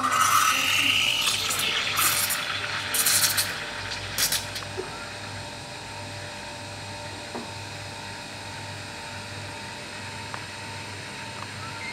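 Espresso machine steam wand frothing milk in a stainless steel pitcher. It hisses loudly with sputtering flurries for about the first four seconds, then settles to a quieter, steady sound.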